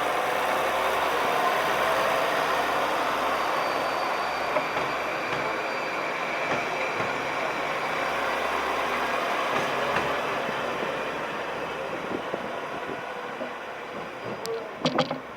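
A train running on the rails, a steady loud rumble with faint whining tones, fading over the last few seconds, with a few sharp clicks near the end.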